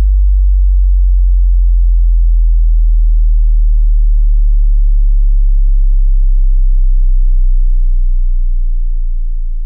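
A deep, steady sub-bass tone played through an event PA's loudspeakers and subwoofers during a speaker test, starting to fade out near the end.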